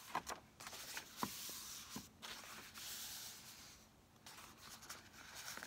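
Faint rustling of book pages as hands rub and smooth glued pages together, in three long strokes, with a few light taps in the first two seconds.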